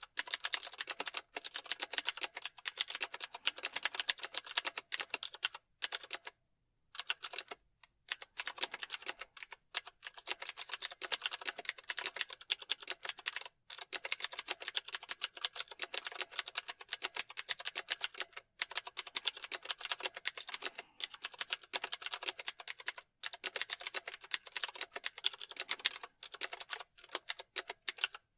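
Continuous fast typing on a computer keyboard, a dense run of key clicks with a few short pauses, one of them about six seconds in.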